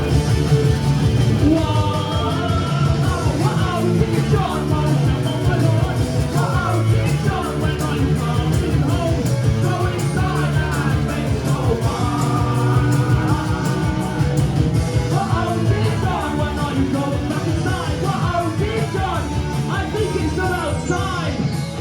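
Live rock band playing a song loudly, with a strong bass line under guitars and a sung melody.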